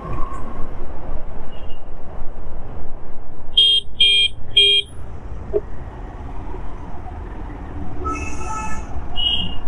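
Steady wind and road noise of a motorcycle riding through traffic, with three short honks of a vehicle horn about halfway through and a longer horn blast near the end.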